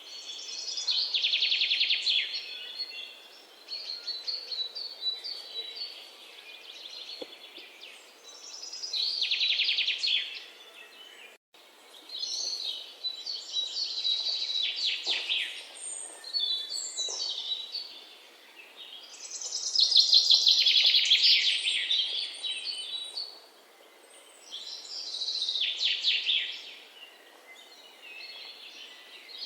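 Birds singing: trilled, high-pitched phrases a second or two long, repeating every few seconds, with a few whistled notes and downward-sliding calls between them.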